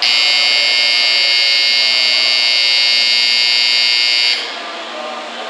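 Shinkansen platform departure bell ringing as a loud, steady electronic buzz for about four seconds, then cutting off suddenly: the signal that the train's doors are about to close for departure.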